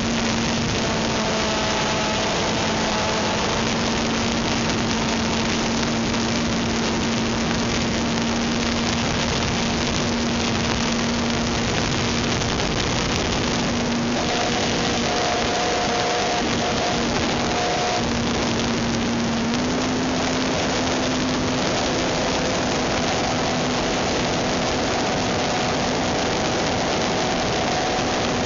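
A Cox .049 Black Widow tiny two-stroke glow engine on a radio-controlled model plane, running steadily at high revs with a thin, high buzz over a dense hiss. Its pitch steps up slightly about twenty seconds in.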